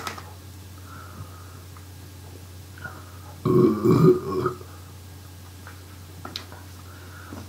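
A man burps once, a drawn-out belch of about a second, a little over three seconds in.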